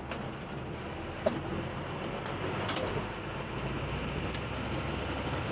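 Steady rumble of a bus heard from inside the passenger cabin, with a sharp click about a second in.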